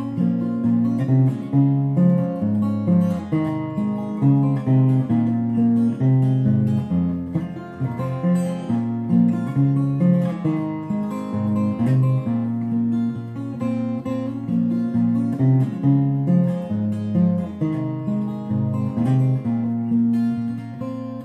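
Acoustic guitar played solo in a steady rhythm: an instrumental break in a folk song.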